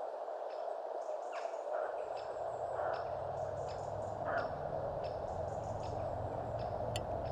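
Small birds chirping in short, repeated calls over a steady background noise, with a low rumble coming in about two seconds in.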